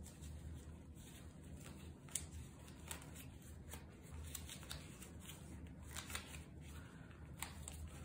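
Nitrile-gloved hands twisting a bunched cotton shirt and wrapping a small rubber band tightly around it: faint rustling of fabric and gloves with scattered small clicks and snaps, over a low steady hum.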